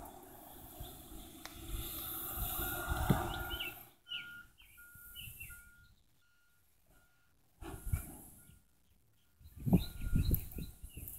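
A dog feeding from a bowl: short, irregular wet knocking and mouthing sounds, loudest near the end. Birds chirp in the background, and a short high note repeats about twice a second.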